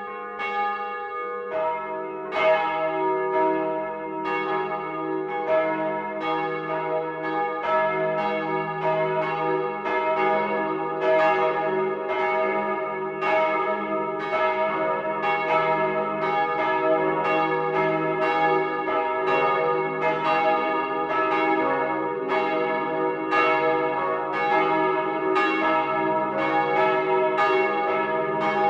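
Several church bells of the Johanneskirche swinging and ringing together in full peal, their strokes overlapping continuously. A deeper bell joins about two seconds in.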